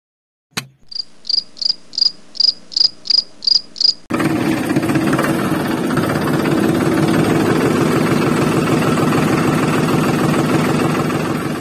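A click, then a run of short, evenly spaced high chirps, about three a second; then, about four seconds in, a small brushed DC motor starts and runs steadily with a fast, loud buzz.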